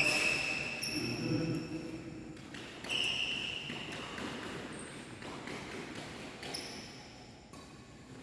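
Badminton shoes squeaking on an indoor court floor: several short, high squeaks as players move, after a single sharp hit at the start, with faint voices underneath.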